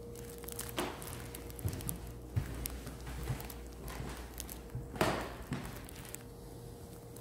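Footsteps on a hardwood floor with rustling handling noise from a handheld camera, over a steady faint hum. There are a few soft thumps, and two brief swishes about a second in and about five seconds in; the second swish is the loudest.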